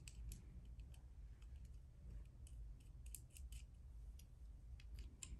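Faint, irregular small clicks and ticks of a black hex nut being handled and twisted onto a metal contact post of a dog e-collar receiver.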